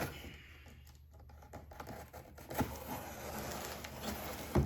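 A box being opened by hand: rustling, scraping handling noise with a few sharp taps, the loudest near the end.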